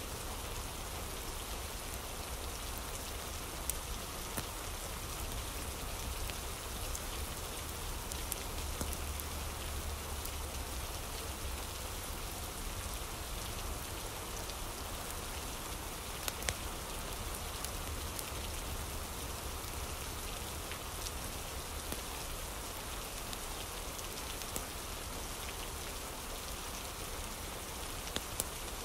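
Steady rain falling, an even hiss with a low rumble beneath it, with a few sharp clicks scattered through.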